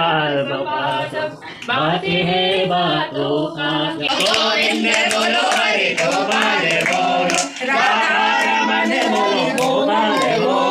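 A group of people singing together without instruments, as in a game of antakshari. From about 4 s in the singing gets fuller and is joined by hand clapping.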